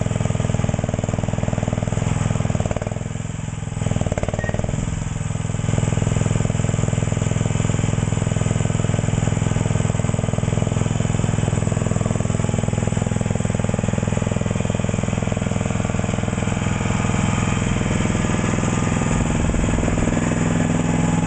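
Mini excavator engine running steadily, dropping briefly in level about three seconds in before picking back up.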